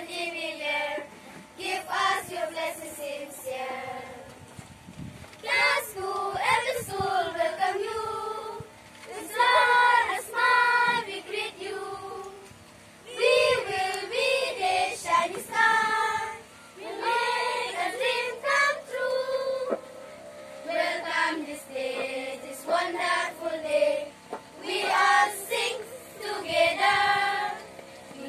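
A group of schoolgirls singing a song together, in phrases with short pauses between them.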